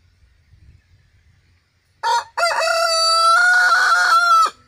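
Rooster crowing once, close by and loud: a short first note about two seconds in, then a long, steady drawn-out call of about two seconds that cuts off just before the end.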